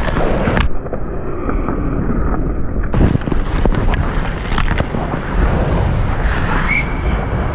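Ice hockey skates scraping and carving across the ice, with sharp clicks of a hockey stick striking the puck and the ice. For about two seconds near the start the sound goes dull, its high end cut off.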